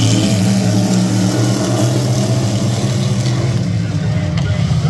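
Engines of a pack of vintage dirt-track race cars running at speed around the oval, a steady engine drone that eases slightly near the end.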